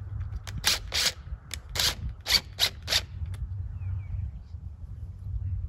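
Cordless impact driver driving a screw into a wooden 4x4 post in a string of short, sharp bursts over the first three and a half seconds, then going quieter. A steady low rumble runs underneath.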